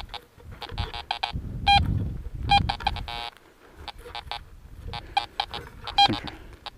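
Fisher F19 metal detector giving short, pitched electronic beeps in irregular clusters as the search coil is swept, over a low rustle.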